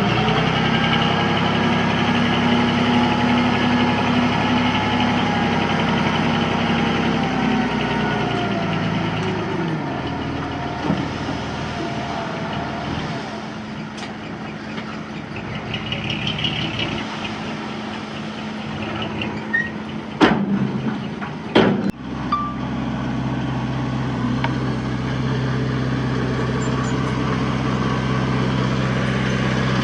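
Heavy diesel machinery engine working, its pitch falling after several seconds, then running lower. Past the two-thirds mark come two sharp bangs about a second and a half apart, and the engine then runs steadily again.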